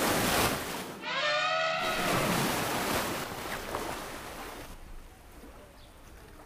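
An elephant trumpets once, a short call with a bending pitch about a second in. Around it is a steady rushing noise like splashing water, which fades away after about four and a half seconds.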